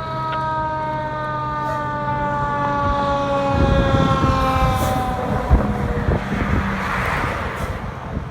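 Fire truck going by with a long held warning tone that slowly falls in pitch and fades out about six seconds in. Under it the truck's heavy engine rumble rises from about three and a half seconds, with a sharp knock near the middle.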